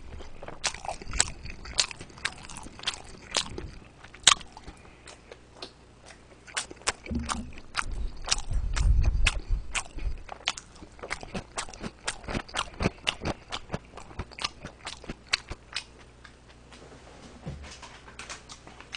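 Close-miked eating of steamed dumplings (mandu): chewing with many quick, irregular mouth clicks, and a low rumbling bump about eight to ten seconds in.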